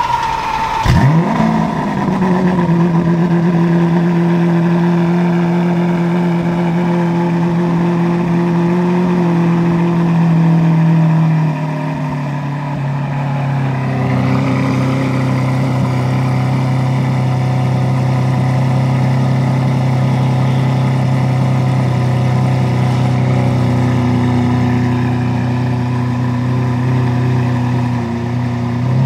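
Lamborghini Aventador's V12 running just after start-up: it settles from its start-up flare in the first second into a loud, steady high idle, then the idle steps down to a lower, steady note about twelve seconds in.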